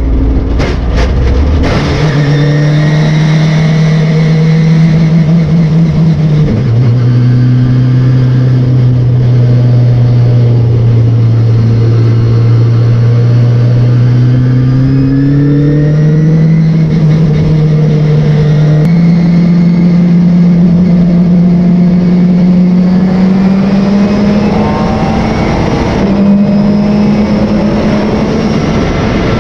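Race car engine running hard on track, its pitch dropping sharply twice in the first seven seconds, then climbing slowly with a few small jumps up as the car accelerates. A few sharp clicks near the start.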